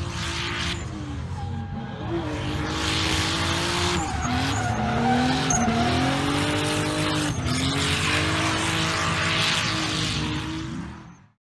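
A car drifting: the engine revs up and down over loud tyre squeal and skidding, fading out near the end.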